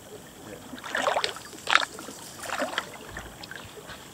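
Canoe paddle strokes in calm water: three splashy dips with water dripping off the blade, a little under a second apart.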